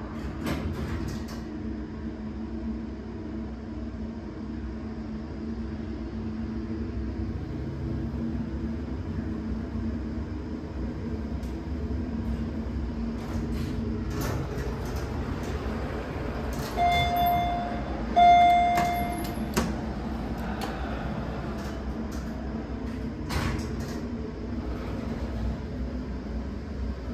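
Hydraulic passenger elevator car in travel: a steady machinery hum and ride rumble, with a few clicks and knocks. A little past halfway, two short electronic chime tones sound a second apart, the car's floor-arrival signal.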